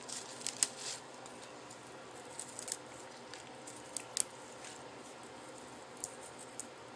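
Faint, scattered soft clicks and rustles of hands laying lettuce and herb leaves onto moist rice paper for a fresh spring roll.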